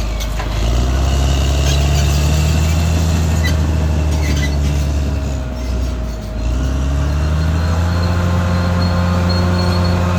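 Caterpillar D6R XL bulldozer's diesel engine running hard. About six seconds in it drops briefly in pitch and loudness, then picks back up, with a thin high whine running above it.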